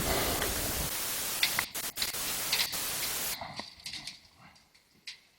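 A steady hiss with a few sharp clicks, which cuts off about three and a half seconds in, leaving only faint small sounds.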